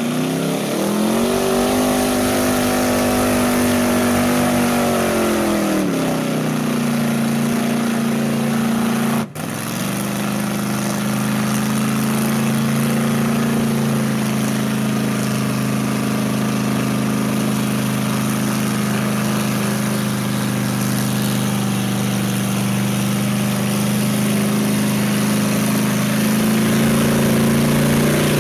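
Chevrolet mud truck's engine revving up in a mud pit, held at high revs for a few seconds, then dropping back about six seconds in. After a sudden cut, an engine runs steadily at a lower pitch, rising slightly near the end.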